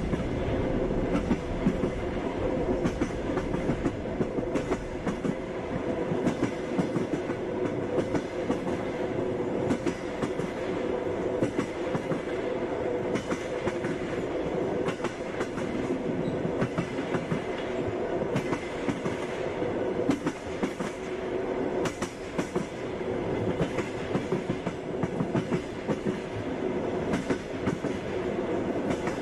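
Passenger train under way: a steady rumble of the running carriage with frequent clacks and knocks of the wheels over the rails, and a steady hum under them.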